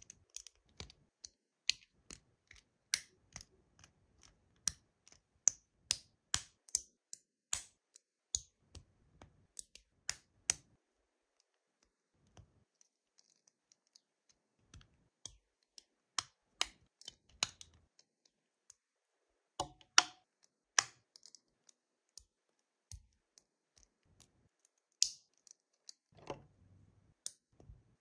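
LEGO plastic pieces handled and pressed onto a plate, making sharp clicks. The clicks come in quick succession for about ten seconds, stop for a few seconds, then return scattered and spaced out.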